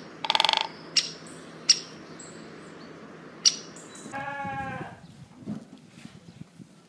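Sheep bleating: a short bleat near the start and a longer one about four seconds in, with three short, sharp high chirps between them.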